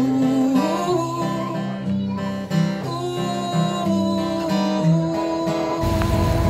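Background music: an acoustic guitar picking a repeating pattern under long held melody notes. About six seconds in, a low rushing noise comes in beneath it.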